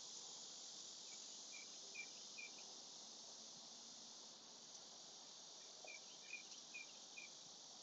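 Near silence: a steady faint hiss with two short runs of faint, high chirps, about four in each run, one near the start and one near the end.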